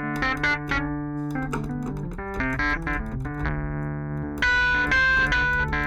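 UAD Electra 88 software electric piano played through its Fender amp model: held bass notes under chords and a melody line, getting louder and brighter about four and a half seconds in.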